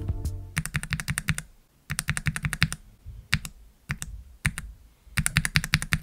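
Typing on an ai03 Vega mechanical keyboard with JWK Mauve linear switches lubed with 205g0 and fitted without switch films. Quick runs of keystrokes alternate with a few single presses and short pauses.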